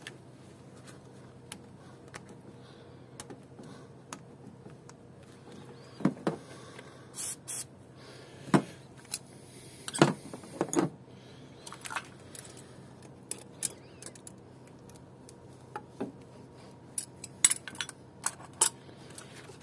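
Irregular metallic clinks and knocks, with one brief scrape, as the thermostat housing of a Vauxhall Zafira 1.8 petrol engine is worked loose and pulled out by hand; the loudest knocks come about halfway.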